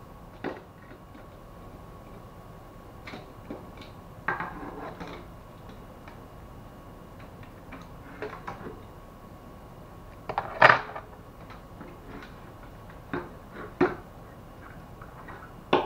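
Scattered clicks, knocks and clatter from the metal and plastic parts of an HP LaserJet M401dn printer as they are handled and taken apart by hand. The loudest clack comes about two-thirds of the way through.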